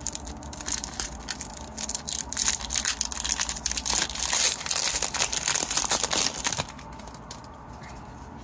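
Crinkling and crumpling of a hockey-card pack wrapper as it is handled and opened, a dense crackle that stops about two-thirds of the way through.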